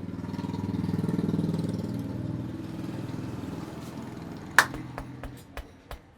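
A passing motor vehicle's engine on the road swells and then fades away. Near the end come a loud sharp click and then four fainter clicks over the next second and a half.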